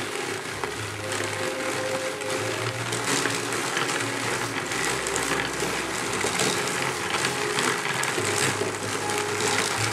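Hand-cranked drum carder turning as its wire-toothed drums card wool, a steady whirring brush of fibre on card cloth with fine mechanical ticking from the drive.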